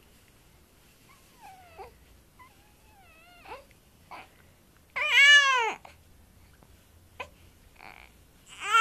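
Four-month-old baby cooing in two soft gliding sounds, then a loud rise-and-fall squeal about five seconds in and another loud squeal at the very end, with a short sharp catch between them.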